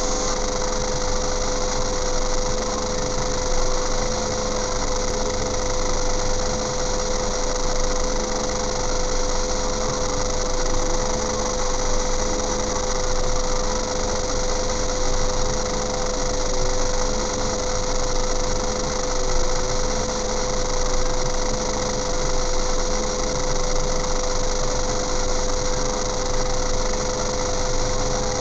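A vehicle engine idling steadily, heard from inside a stationary car, with a constant whine over it.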